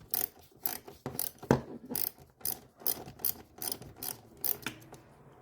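Hand socket ratchet clicking in short bursts, about three a second, as an 8 mm bolt on the air filter housing is turned loose. The clicking stops near the end.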